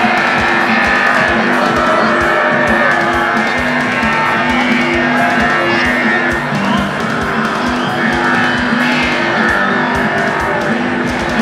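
Loud live concert music heard from the crowd, with held chords and low notes over a fast, steady beat.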